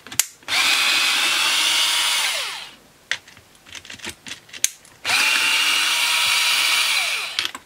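Cordless electric screwdriver backing out screws from a plastic speaker bezel: two runs of the motor, each about two seconds long and winding down in pitch as it stops. Small clicks and knocks come between the runs.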